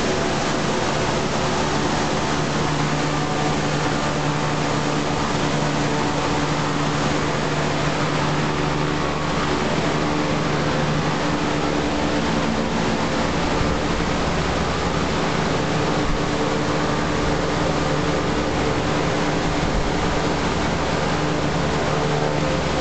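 Steady hum of a running machine: a constant low drone under an even hiss, unchanging throughout.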